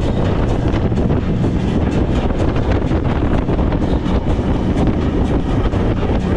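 Wind buffeting the microphone over the steady rumble of a speedboat running on the water.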